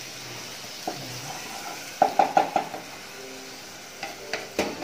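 Chili paste sizzling in a small saucepan as it is stirred and sautéed, a stage where it is cooked until the oil separates. A quick run of utensil knocks and scrapes in the pan comes about two seconds in, and a few more clicks come near the end.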